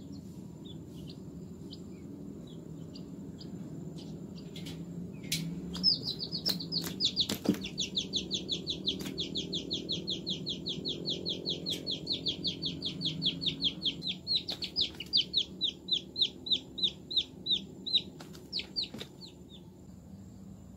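Quail chick giving distress peeps while caught in a tokay gecko's jaws. A few scattered single peeps at first, then, about six seconds in, a long unbroken run of short, high, slightly falling peeps at about four to five a second that thins out near the end.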